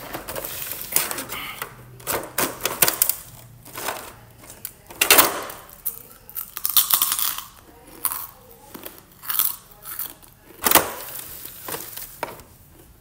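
Crackling of a clear plastic clamshell box and loud crunching bites and chewing of fried pork chicharon (pork rinds), a run of sharp crunches with short pauses between.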